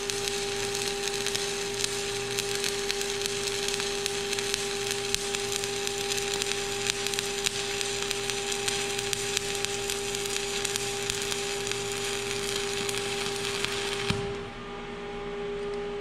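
Stick-welding arc from a 1/8-inch 7018 electrode laying a horizontal pass: a steady, dense crackle that cuts off abruptly near the end when the arc is broken.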